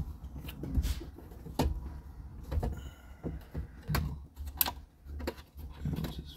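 Plastic housing of a 1998 Jeep Cherokee XJ instrument cluster clicking and knocking against the dash as it is worked into place, its rear plugs being pushed into their connectors. The clicks come irregularly, about a dozen of them.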